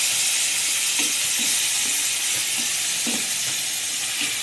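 Pork pieces sizzling as they fry in oil in a stainless steel pot, with a steady hiss. A wooden spatula stirring them knocks and scrapes lightly against the pot a few times.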